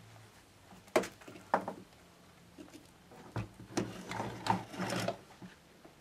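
Hands handling a small plastic rotor and lamp parts over a workbench: a scattering of light knocks and rubbing, busiest in the second half, over a faint low hum.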